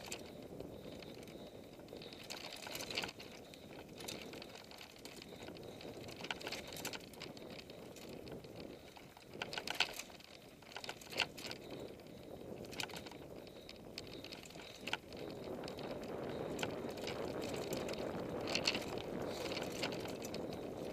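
Mountain bike rolling fast down a dirt forest trail: steady tyre noise on the dirt with sharp clicks and rattles from the bike over roots and bumps, growing louder in the last few seconds.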